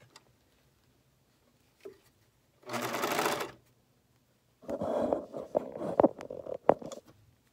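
Overlock (serger) sewing machine stitching a sleeve seam, its blade trimming the edge as it sews. It makes a short run of under a second about three seconds in, then a longer run of about two and a half seconds, with a couple of sharp clicks near the end.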